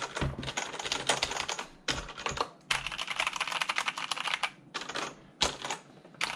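Typing on a Kinesis Advantage 2 ergonomic mechanical keyboard with its stock ABS keycaps: fast runs of key clicks, broken by two short pauses, then thinning to a few single keystrokes near the end.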